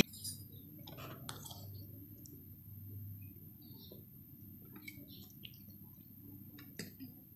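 Faint, scattered clicks of forks and spoons against plates of macaroni as eating begins, over a low steady room hum.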